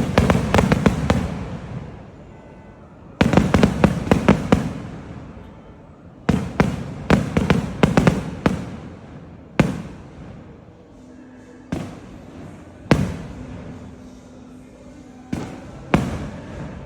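Fireworks going off: three volleys of rapid sharp bangs, each with a fading rumble. These are followed by single bangs a second or two apart.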